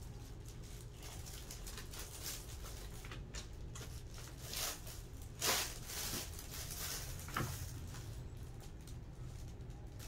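Kittens scampering and scrabbling at play: light patter and scratching of paws and claws, with a louder scrabble about five and a half seconds in.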